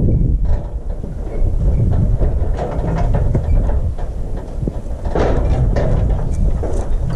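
Wind buffeting the microphone as a steady low rumble, with scattered clanks and rattles from the steel cattle chute as calves shift inside it, busiest about five seconds in.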